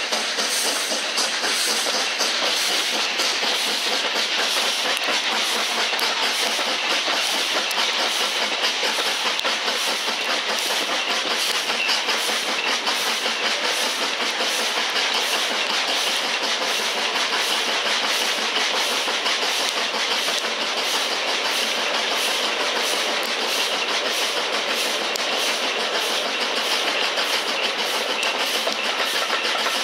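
Steam-hauled train running at speed, heard from an open carriage window: a steady rush of wind and wheel-and-rail noise with a regular beat through it, from a train headed by an LMS Black Five 4-6-0 steam locomotive.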